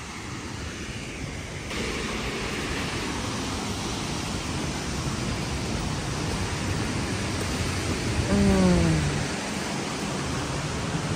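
Steady rushing of a waterfall, growing louder a couple of seconds in, with a short voice sound falling in pitch about eight seconds in.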